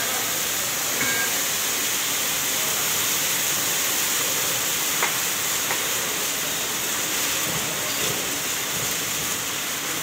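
Steady, even hiss of foundry noise around a flaming ladle at an induction furnace, with a few faint clicks about one and five seconds in.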